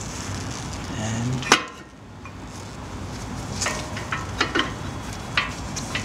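Metallic clicks and clinks from a 2004 Audi A4's front brake caliper and new brake pads being handled and fitted over the disc. One sharp click comes about a second and a half in, then a scatter of lighter clicks in the second half.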